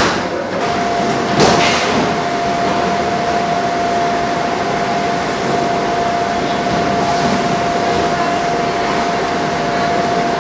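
Factory conveyor-belt machinery running: a steady machine noise with a constant whine, and a brief clatter about a second and a half in.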